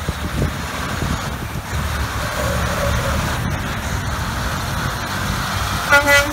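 Diesel semi-truck hauling a tanker trailer pulling out and accelerating slowly past, its engine running low and steady with tyre noise on wet pavement. Near the end a horn sounds in two short blasts.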